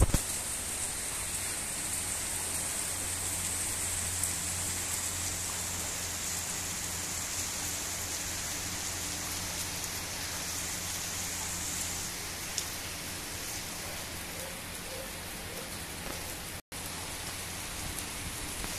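Heavy rain falling steadily, an even hiss of rain on roofs and streets, with a faint low hum underneath.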